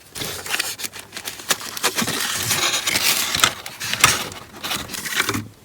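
Packaging being handled and opened: steady rustling and crinkling with many small clicks and ticks, stopping suddenly near the end.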